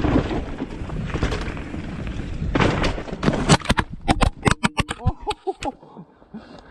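Mountain bike running down a dirt trail with tyre rumble and wind noise, then an over-the-bars crash about two and a half seconds in: a run of sharp thuds and clatters as rider, bike and camera hit the ground, the pedal having caught a tree stump.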